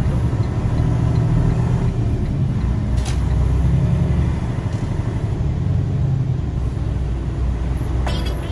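Delivery truck's engine and road noise heard from inside the cab as it drives slowly into a tunnel entrance: a steady low rumble, with a short click about three seconds in and another near the end.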